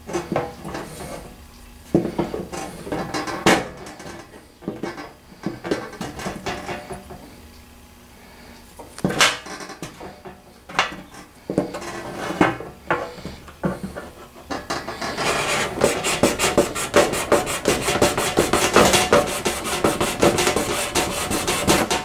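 Multi-tool saw blade cutting into a small block of scrap wood: scraping strokes, uneven and broken by pauses at first, then a fast, even run of short sawing strokes over the last third.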